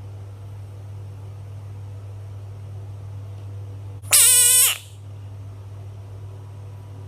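A bullfrog gives one loud call of well under a second, about four seconds in, sliding slightly down in pitch. A steady low hum runs underneath.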